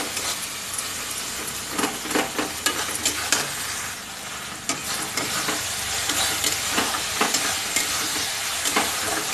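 Tomato-onion masala sizzling in oil in a kadai, stirred with a metal spatula that scrapes and clicks irregularly against the pan.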